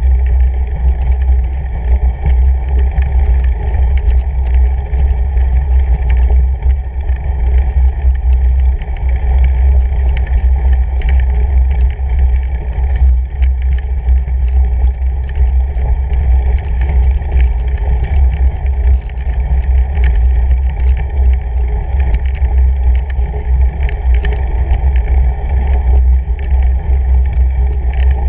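Fat bike riding over packed snow, heard through a bike-mounted action camera: a loud, steady low rumble with scattered faint ticks.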